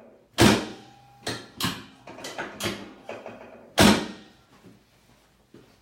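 Sharp clacks from a chiropractic table during a hip and pelvis adjustment to level uneven leg length. A loud clack comes just after the start and another near the end, with lighter knocks and clicks between them.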